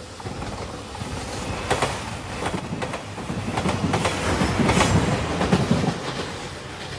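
JR Shikoku 2700-series diesel express train passing at a level crossing, its wheels clacking repeatedly over the rail joints above a low running rumble. It grows louder to a peak about five seconds in, then begins to fade.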